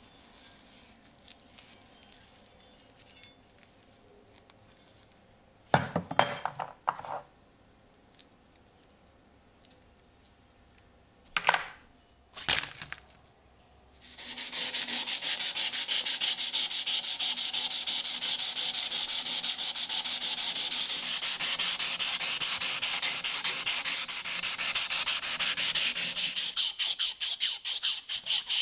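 Faint handling with a few sharp knocks on wood, then halfway through hand sanding starts: abrasive paper rubbed back and forth over the rusty steel of a Mosin–Nagant socket bayonet in quick, even strokes, steady and much louder than the handling.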